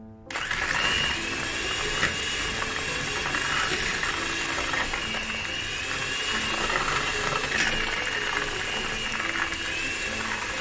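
Electric hand mixer switched on and running steadily, its beaters creaming softened butter and caster sugar. The motor's whine rises and falls gently every couple of seconds as the beaters work through the mixture.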